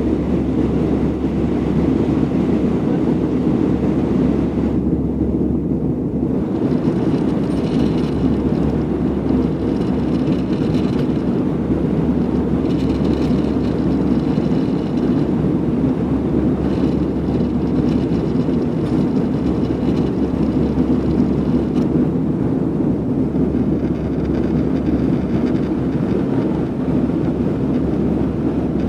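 Jet engines of an Airbus A318 running with a steady low rumble, a faint high whine coming and going above it.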